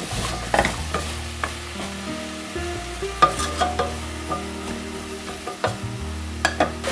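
A wooden spoon stirring diced potatoes and sliced mushrooms as they sauté in oil in a stainless steel pot, with light sizzling and scattered knocks of the spoon against the pot.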